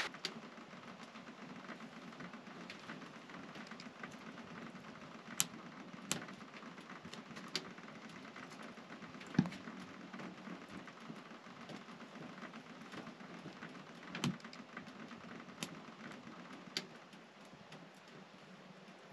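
Wood fire burning in a King Camp wood-burning camp stove, with scattered sharp crackles and pops a second or more apart, over a faint steady patter of snow falling on the awning.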